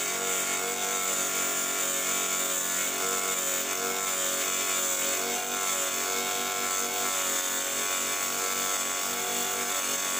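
Low-wattage (80–100 W) mini table saw running steadily while its blade cuts through a 2 mm acrylic sheet: a steady motor whine whose pitch wavers slightly, over a high cutting hiss. The motor holds up well in the 2 mm acrylic.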